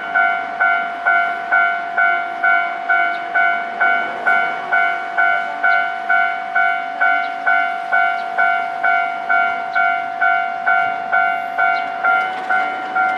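Japanese level-crossing warning alarm ringing loudly, an electronic bell striking about twice a second at an even pace. It signals that the barriers are down for an approaching train.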